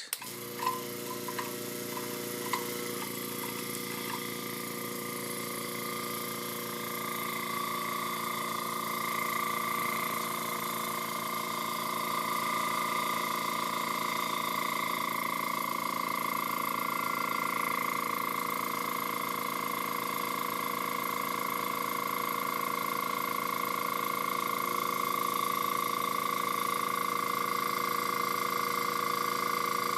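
TCP Global TC-20T airbrush compressor starting on its first run, with a few light clicks as it starts, then a steady motor hum and whine that builds a little over the first several seconds as it fills its tank.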